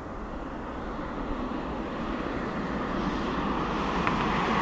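Jet engines of a twin-engine airliner climbing out after takeoff: a broad, steady rush that grows louder as the plane comes nearer.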